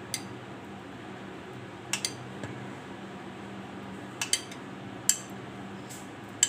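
A metal spoon clinking against glassware as fresh cream is spooned into a dessert glass: about seven light clinks with a brief ring, some in quick pairs, over a steady low hum.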